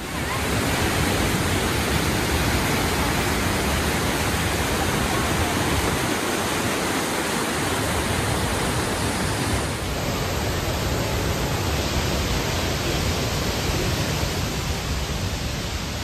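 Steady roar of rushing water from a large waterfall, an even noise that comes in suddenly and holds without change.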